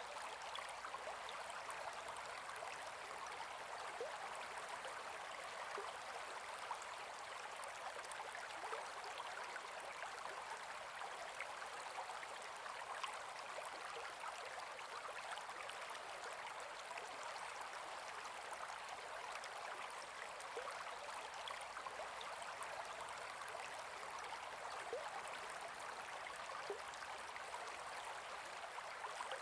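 Gentle forest river flowing: a steady, even rush of water with many small splashes and trickles, light and without deep rumble.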